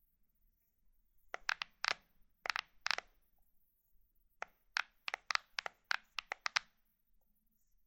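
Plastic buttons on an air conditioner remote control being pressed, each press a short sharp click with no beep. A handful of clicks comes in the first half, then after a pause a quicker run of about a dozen.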